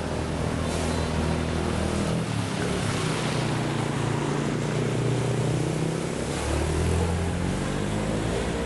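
A small boat's motor running steadily, its pitch rising a little about six seconds in, over a constant rush of moving water.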